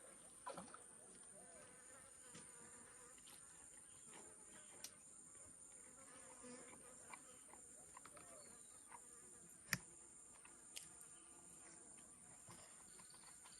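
Faint, steady, high-pitched drone of insects, with scattered small clicks and one sharper click about ten seconds in.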